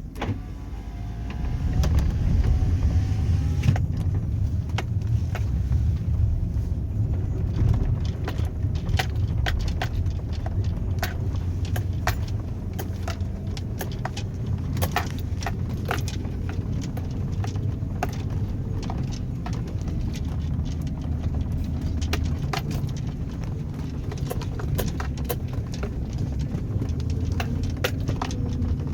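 Chevrolet Avalanche pickup's V8 driving off-road through snow. A steady low engine drone grows louder about two seconds in, with many quick clicks and rattles from the truck jolting over rough ground.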